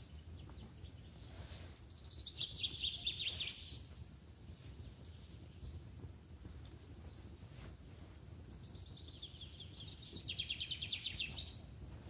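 A songbird sings twice, about seven seconds apart, each song a fast trill of high notes that slides somewhat lower as it goes. Under it runs a low steady background, with a few faint crackles from a small stick campfire.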